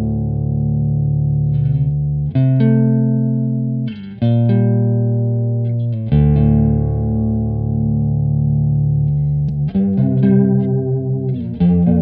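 Electric guitar, a Fender Jaguar on its neck pickup, playing chords that ring out, struck about every two seconds, through an MN3007 bucket-brigade chorus pedal (a Small Clone–style chorus) that gives them a shimmering warble. Near the end the chords come quicker, with a fast rippling wobble.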